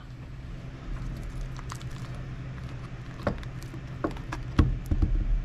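Aluminium foil and duct-taped layers of a homemade armor panel crinkling and rustling as fingers pick through them, with a few sharp clicks and a couple of dull knocks in the last second or so.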